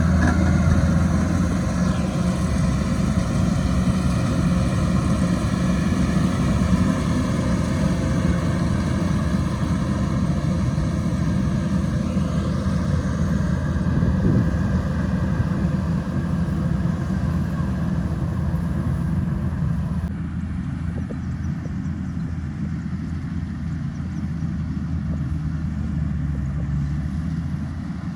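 Rice combine harvester's engine running steadily under load. About twenty seconds in, the sound changes abruptly and loses some of its upper hiss.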